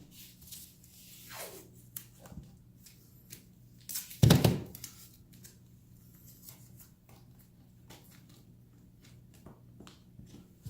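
Blue painter's tape being handled, pulled from the roll and torn, with light clicks and rustles and one louder rip a little over four seconds in.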